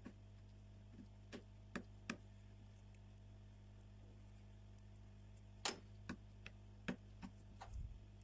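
Small, sharp clicks and taps of hand tools and parts being handled during an iPhone 11 battery replacement, about a dozen at irregular intervals, the loudest about five and a half seconds in. A steady low electrical hum lies under them.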